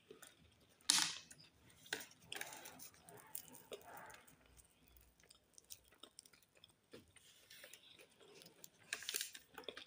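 A person chewing a soft bread roll with chocolate spread: quiet, irregular mouth sounds with wet smacks and clicks, the sharpest about a second in and more near the end.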